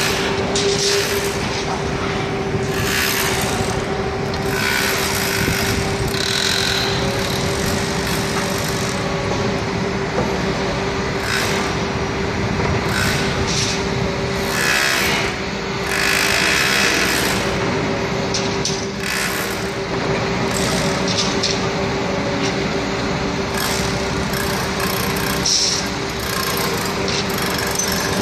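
Heavy construction machinery running at an excavation pit, chiefly a Liebherr HS 8070 cable-operated crawler crane working a clamshell grab. There is a steady whine over diesel engine noise, with repeated bursts of rattling and clanking.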